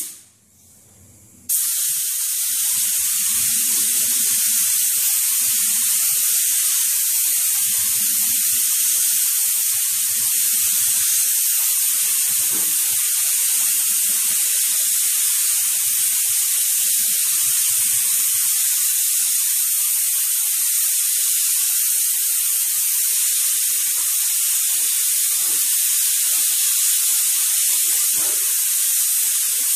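Compressed-air spray gun spraying a coat of primer onto a motorcycle fuel tank: a steady air hiss that starts about a second and a half in and holds even.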